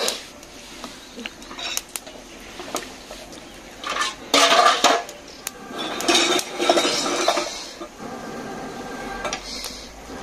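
Metal clinking and knocking of cookware: a black iron rod or tool knocking against the iron wok and stove as firewood sticks are shifted in the fire, with louder clatters about four and six seconds in.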